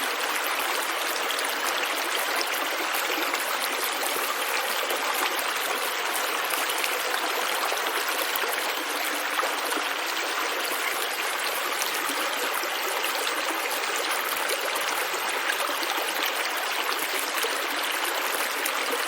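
Small stream of water running and trickling steadily over rocks, a continuous even rush.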